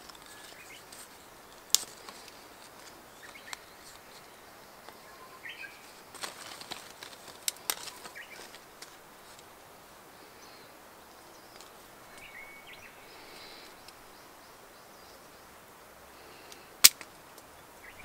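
Sharp snips of a SOG multi-tool's wire cutter clipping camellia flower stems, a few scattered clicks with the loudest near the end. A couple of short bird chirps sound faintly behind.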